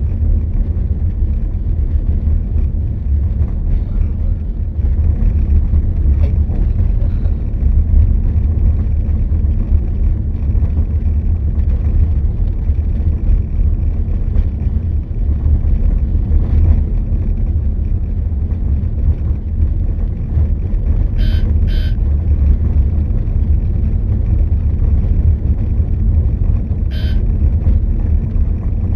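Steady low rumble of a vehicle travelling along a road, with wind on the microphone. Three short high beeps cut through: two in quick succession about two-thirds of the way in, and one more near the end.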